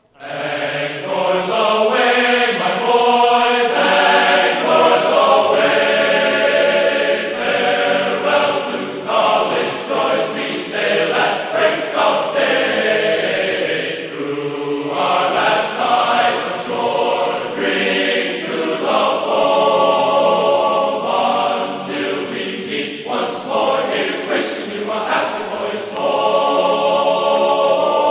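Background music of choral singing, voices holding long chords that change every second or two.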